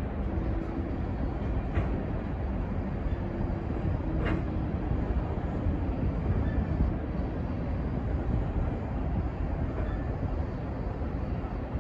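BNSF coal train's gondola cars rolling past, a steady rumble of steel wheels on rail, with two brief sharp clicks from the wheels and track about two and four seconds in.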